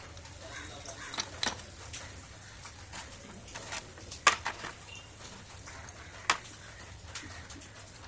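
Sharp metallic clicks and taps of bolts and parts of an auto-rickshaw starter motor being handled during disassembly. The loudest click comes about four seconds in and another about six seconds in, with a few lighter taps near the start.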